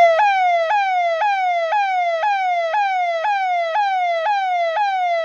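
Electronic Indian police siren sounding a fast repeating wail: about two cycles a second, each jumping up in pitch and sliding down again.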